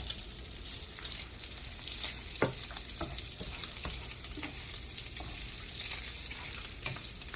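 Hot cooking oil sizzling steadily as food fries, with a few light clicks scattered through it.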